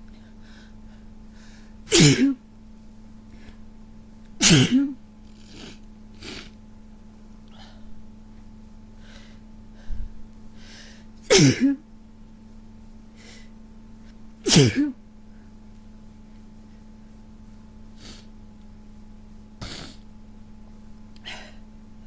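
A person with a cold sneezing four times, loud sudden voiced sneezes spaced a few seconds apart. Fainter short breaths come between them, over a steady low hum.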